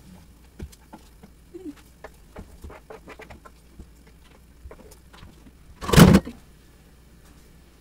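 Light clicks and taps of a utensil scraping cut cabbage and tofu off a plastic cutting board into a pot. About six seconds in there is one brief, loud noise.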